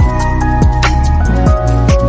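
Background music: electronic track with sustained synth notes, a steady bass and regular beats.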